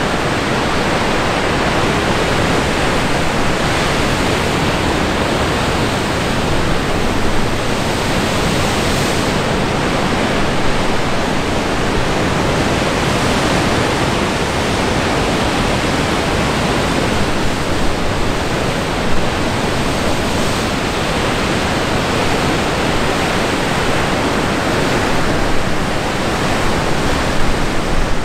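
Steady, loud rush of wind on the microphone mixed with ocean surf breaking on the rocks, with small swells in level now and then.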